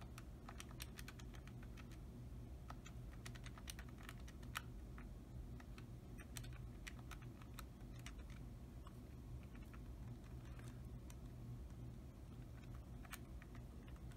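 Scientific calculator keys being pressed one after another: faint, irregular plastic clicks as a long multi-term sum is keyed in.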